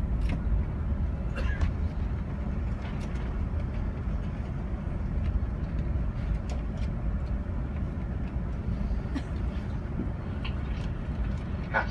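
Steady low rumble in the upper-deck cabin of a Lufthansa Airbus A380 taxiing after landing, with a few faint clicks.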